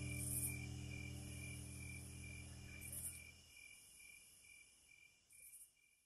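Crickets chirping in the song's outro, a regular pulsing chirp with three louder high trills, as the last held chord fades away over the first few seconds.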